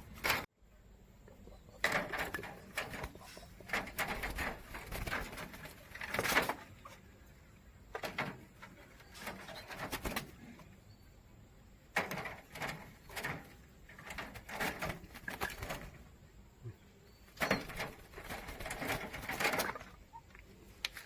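An agitated bird making short noisy bursts of sound, in clusters every two seconds or so.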